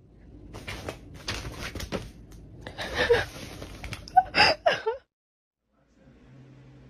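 Rustling of bedding and knocks and clatters from a plastic sun visor as a small fluffy pet tumbles about with it. Near the end come a few brief high squeaky sounds before it cuts off.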